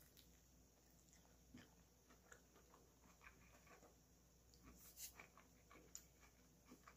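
Faint chewing of a bite of chicken lettuce wrap: soft, irregular little clicks and moist crunches of the mouth and lettuce, close to silence.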